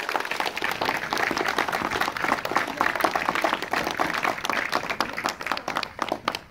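A group applauding, many hands clapping quickly and steadily, dying away near the end.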